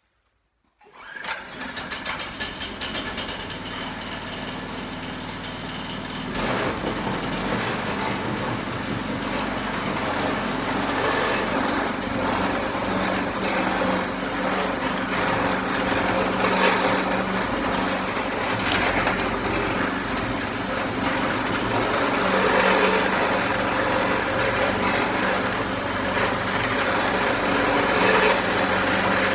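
Single-cylinder Harbor Freight 6.5 horsepower gas engine starting about a second in and running steadily, driving a pitman arm log splitter; the sound steps up about six seconds in. A few sharp cracks and knocks come later as a log is split.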